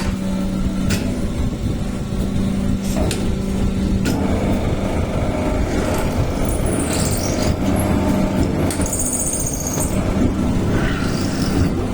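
Multi-spindle drilling machine running, a steady mechanical hum and rumble with a few light clicks.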